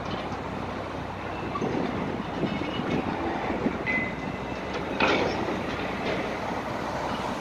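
Steady rumble of passing road traffic and demolition machinery, with a short high squeal about four seconds in and a sharp knock about five seconds in.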